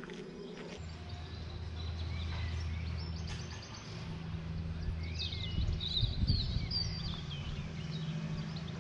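Small birds chirping and singing, busiest in the middle of the stretch, over low, steady background music that comes in just under a second in.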